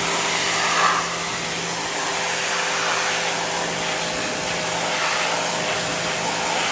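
WAP electric pressure washer running steadily, its high-pressure jet hissing as it sprays a motorcycle's rear chain and sprocket, with a steady motor hum underneath.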